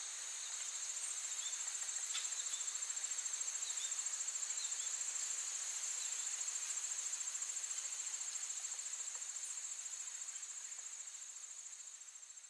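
A continuous high-pitched insect trill, rapidly pulsing and steady, with a few faint chirps over it. It eases off a little near the end.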